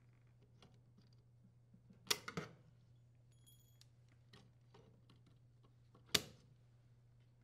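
Snips cutting through the thin metal grounding strap on the back of an electric range: a short cluster of sharp clicks about two seconds in and a single sharp click about six seconds in, with faint ticks of handling between.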